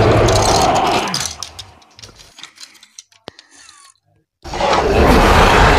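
Loud, rough dinosaur roar sound effect that fades out a little over a second in, followed by a few faint clicks and a brief silence. A second roar starts suddenly near the end.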